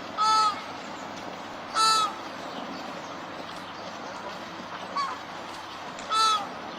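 Flamingo calling: short, harsh honks, three loud ones and one fainter one, over a steady background hiss.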